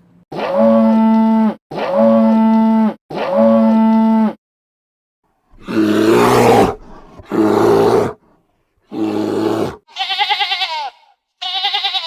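A cow mooing three times in identical calls. Then an animal gives three rough, low calls, and near the end come two high, quavering bleats.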